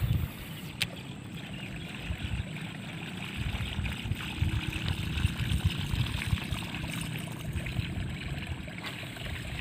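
Reservoir water lapping and trickling at the reedy shoreline, with one sharp click about a second in.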